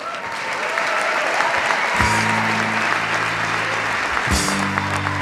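Audience applauding, with music coming in about two seconds in as sustained low chords.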